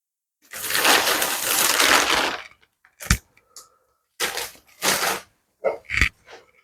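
Dry gari granules being poured, a grainy rushing hiss for about two seconds. After that, a spoon knocks sharply twice and scrapes in short strokes against the pot as the eba is mixed.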